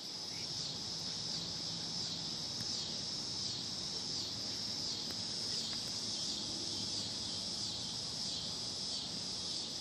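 Evening insect chorus of crickets or cicadas: a steady high-pitched chirring that pulses evenly, about twice a second.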